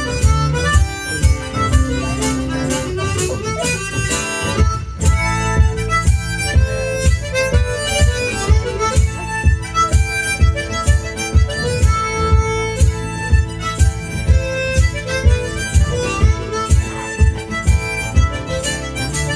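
One-man band playing a tune led by harmonica, with guitar underneath and a steady kick-drum beat of about two thumps a second.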